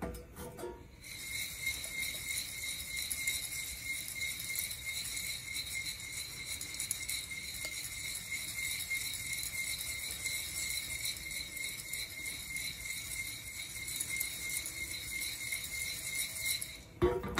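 Raw coffee beans rattling as they are shaken back and forth inside a Nuvo ceramic hand roaster: a fast, continuous rattle with a faint steady high tone underneath. It starts about a second in and stops just before the end.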